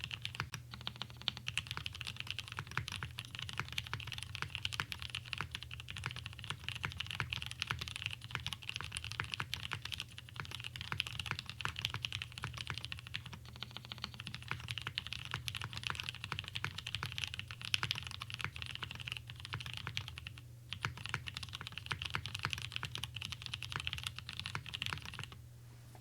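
Continuous fast typing on a custom mechanical keyboard with Gateron CAP V1 switches, tub-lubed with 205g0, in a top-mounted full aluminum plate. The keystrokes come in a dense stream with a brief pause about twenty seconds in, and stop shortly before the end.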